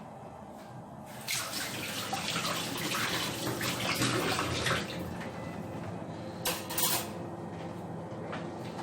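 Water running and splashing for about three and a half seconds, starting suddenly, then two brief splashes.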